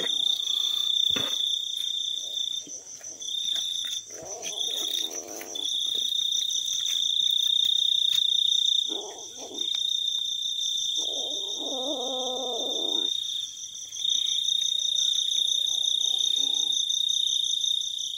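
Night insects chirring: a steady, high-pitched trill that breaks off briefly every few seconds. Underneath come a few short, lower sounds with a wavering pitch; the longest lasts about two seconds, around eleven seconds in.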